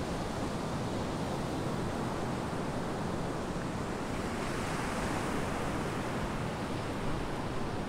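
Steady rush of ocean surf washing on a beach, with wind rumbling on the microphone.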